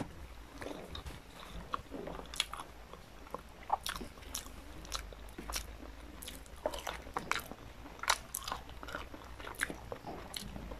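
A person chewing and biting into a piece of boiled pork hock held in the hand, close to the microphone: irregular small clicks and crunches.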